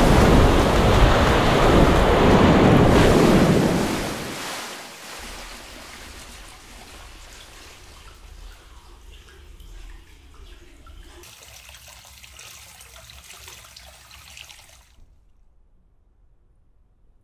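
Ocean surf rushing and breaking around a surfboard riding a wave, loud for the first four seconds. It then drops suddenly to the much quieter trickle and lapping of water in a hot-spring bath, which cuts off about fifteen seconds in.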